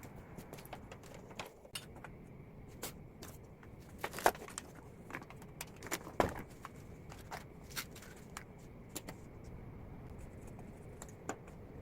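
Irregular light clicks and clinks of small hard objects being handled, with two sharper knocks about four and six seconds in, over a low steady background.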